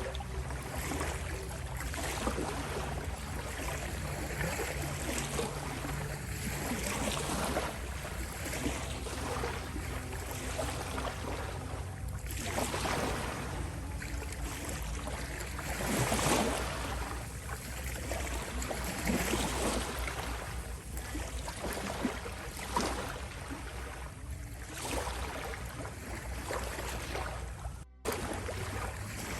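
Ocean waves washing in and drawing back, swelling and fading every few seconds over a steady low rumble, with a brief gap about a second before the end.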